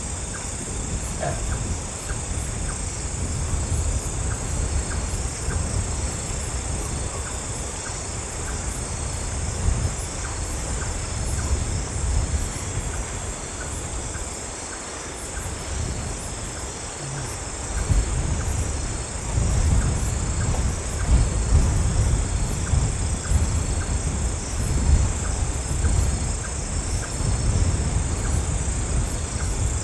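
Strong wind rumbling in gusts, swelling louder about two-thirds of the way through, over a steady high chirring of insects.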